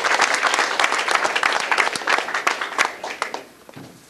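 Audience applauding, dying away to a few scattered claps about three seconds in.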